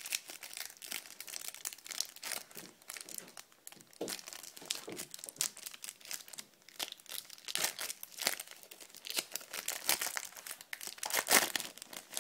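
Clear cellophane wrapper crinkling and crackling as it is peeled off a stack of trading cards, in irregular bursts with a louder crackle near the end.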